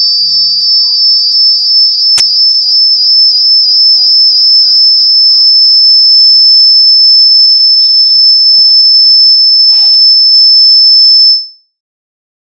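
A loud, steady high-pitched whine, a single piercing tone, over faint traces of a video's soundtrack, with a sharp click about two seconds in; the whine cuts off suddenly near the end.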